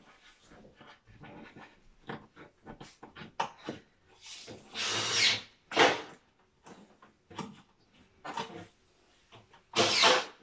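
Rubber cable grommets being pressed into the knockout holes of a metal consumer unit casing: a string of small clicks and scrapes, with two louder, longer scraping noises about five seconds in and near the end.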